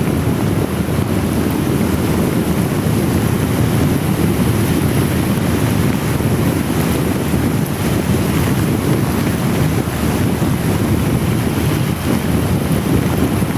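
Steady, loud wind buffeting on the microphone of a motorcycle riding in very heavy rain, a deep rumbling rush with the hiss of rain over it.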